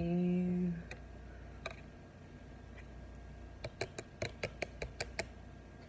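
Light, sharp clicks and taps of small cardboard gift cards being handled. There are a couple of single clicks, then a quick run of about ten over a second and a half near the end.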